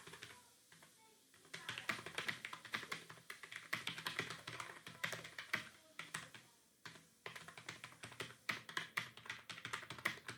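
Fast typing on a computer keyboard: a dense run of key clicks that starts about a second and a half in, breaks off briefly near seven seconds, then goes on.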